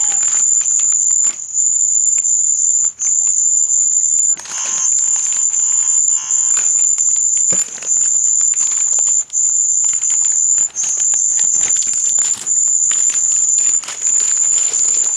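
A high-pitched electronic tone, steady and piercing, cutting out for a split second about every second and a half, with crackly clicks throughout. A buzzier lower layer joins briefly about five seconds in.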